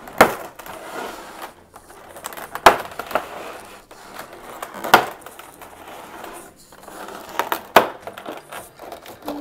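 Stiff clear plastic blister packaging being handled and flexed, crinkling softly with several sharp crackles and snaps spread through.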